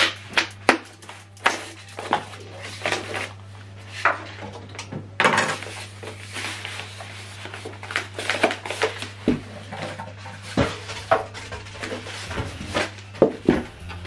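Polystyrene foam packing blocks being worked off a subwoofer by hand: irregular scraping, rubbing and knocking of foam against the wrapped unit and the table, with plastic wrap rustling.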